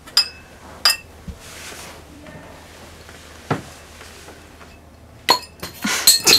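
Glass beer bottles clinking and knocking on a table: a few sharp, ringing clinks spread out, then a quick cluster of them near the end.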